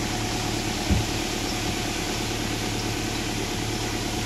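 Heavy diesel engine running steadily at a low, even pitch, with a single low thump about a second in.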